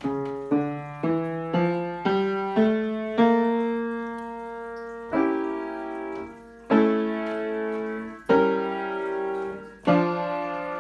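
Solo piano playing chords: a quick run of seven chords climbing in pitch, about two a second, then slower chords held and restruck about every one and a half seconds.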